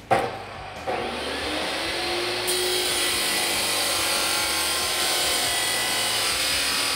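Abrasive chop saw: a sharp knock at the start, then the motor spinning up with a rising whine, and from about two and a half seconds in its cut-off wheel grinding steadily through a stainless steel exhaust pipe.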